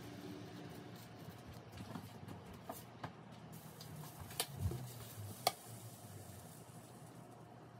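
Light clicks and taps of kitchen tongs against a pan and plate as shrimp is lifted onto a taco, the two sharpest about four and a half and five and a half seconds in, over a faint low hum.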